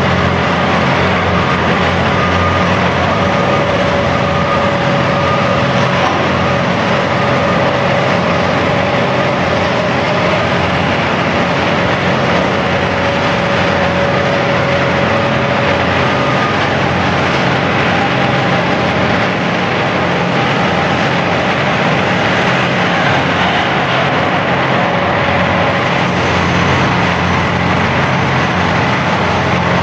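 Heavy machinery running steadily: a continuous, loud engine and mechanical noise with no pauses.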